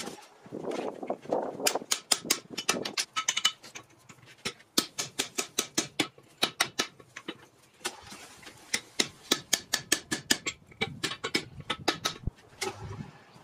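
A hand hammer strikes a handled hot punch driven into a glowing steel billet on the anvil, punching the eye for a rounding hammer head. The blows are sharp metallic clanks in quick runs of about three a second, with short pauses between the runs.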